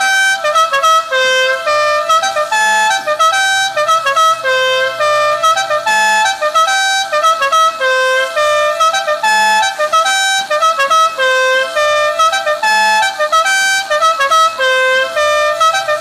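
Electric musical air horn with red plastic trumpets, played loud through its compressor. It sounds a quick tune of short stepped notes, and the same phrase repeats about every three and a half seconds.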